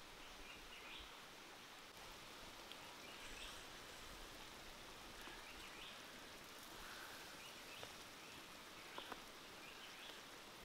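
Faint steady hiss of outdoor ambience with scattered short high chirps, and a couple of light clicks about nine seconds in.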